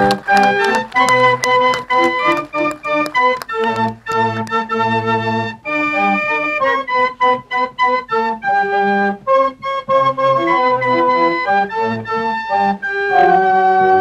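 Organ music playing a melody of short, changing notes. Applause tails off in the first few seconds.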